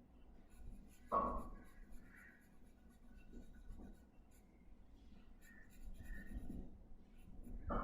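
Faint scratching of drawing strokes on paper during sketching, with two brief louder sounds, one about a second in and one near the end.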